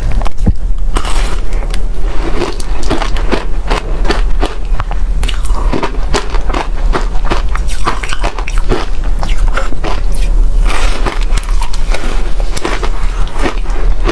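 Freezer frost being bitten and chewed close to the microphone: a dense, irregular run of crisp crunches and crackles.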